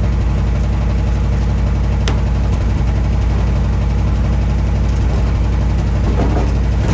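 Two-stroke chainsaw engine idling steadily.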